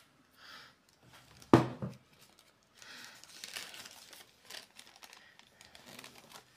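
Plastic grocery packaging crinkling and rustling as items are handled and moved, with one short loud sound about a second and a half in.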